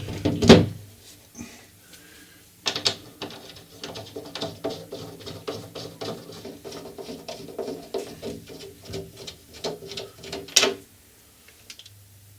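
Screws being driven to fasten a window frame back onto an old wooden door: a steady run of quick ratcheting clicks for about eight seconds, ending with a sharp knock. A single knock comes about half a second in.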